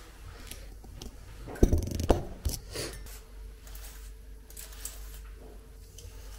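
A few sharp knocks and clatters close together about two seconds in. A faint steady hum starts about a second later.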